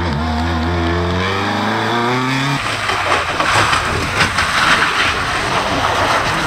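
A Peugeot 208 rally car's engine revving, its pitch rising steadily for about two and a half seconds, then cut off abruptly by a rough, rushing noise with no clear engine note.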